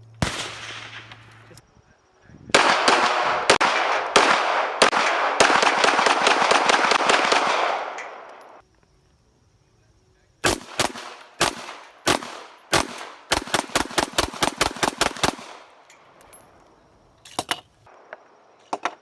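Strings of gunshots in quick succession: a single shot, then several seconds of fast firing with heavy echo, a short pause, then a second string of about twenty shots that speeds up, and two last shots near the end.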